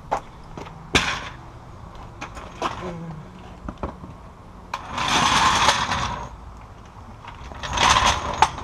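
Tool work on a pickup truck's rear shock mounting: scattered metallic clicks and knocks, a sharp one about a second in, and two bursts of a power tool about a second long, one midway and one near the end.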